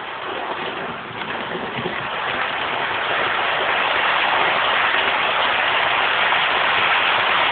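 00 gauge model train running along the track: a steady rushing hiss of wheels and motor that grows louder from about two seconds in as the train comes close.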